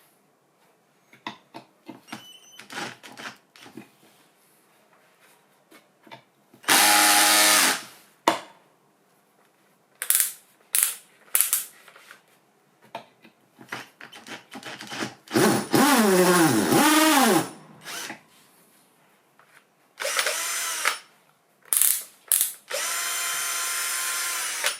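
Restored cordless drill motor running in several short bursts with clicks in between; during the longest run, near the middle, its pitch rises and falls as the speed changes.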